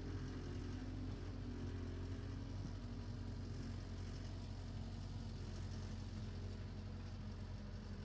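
Tractor engine running steadily while working a power rake, a low steady hum with a rushing noise over it, slowly growing a little fainter.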